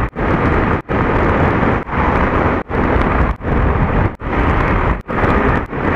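Loud wind rush on an action camera's microphone from a motorcycle riding at highway speed, broken by brief dropouts about once a second.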